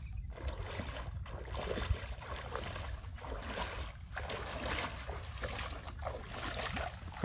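Shallow seawater swishing and sloshing around the legs of a person wading, a swish with each stride about every half second to second, over a low rumble of wind on the microphone.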